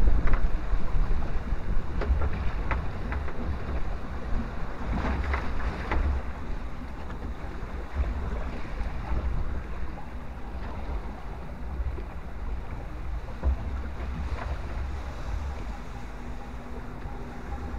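Log flume boat floating along its water channel: water lapping and splashing around the boat, with wind buffeting the microphone and a few short splashes in the first six seconds.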